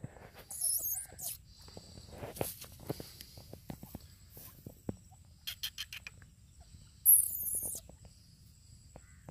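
Grey francolin foraging on dry ground: soft rustling and pecking ticks in dry leaves, with a quick run of ticks, and two short high-pitched squeaky calls, the louder one about seven seconds in.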